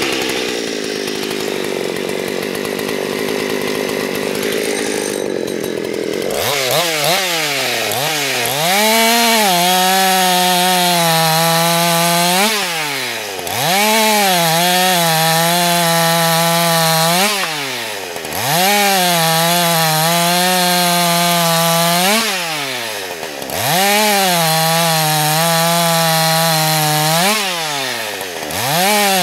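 Ported Husqvarna 288 two-stroke chainsaw idling for about six seconds, then revved up and run at high revs through a log. Four times the revs fall sharply and climb back.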